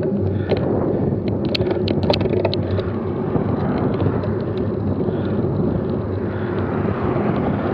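Steady rumble of wind and road noise on a bicycle-mounted camera as a road bike climbs slowly, with a few sharp clicks about one and a half to two and a half seconds in.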